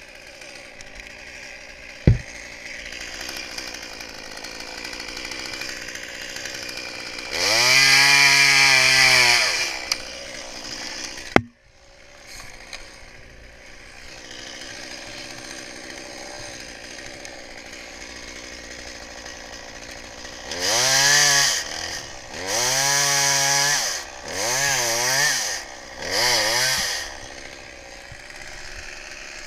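Chainsaw idling, revved up to high speed for about two and a half seconds, then revved in four shorter bursts near the end. A sharp click comes about two seconds in.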